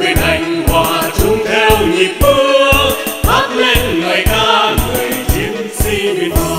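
Vietnamese patriotic song: singing over a band backing with a steady drum beat and bass.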